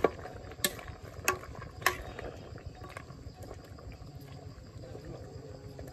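Metal ladle clinking against a metal cooking pot four times in quick succession, about every half second, as a pot of curry is stirred. Under it a steady simmer bubbles in the pot.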